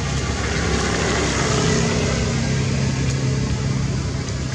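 A motor engine running with a steady low hum, swelling slightly about halfway through and then easing off.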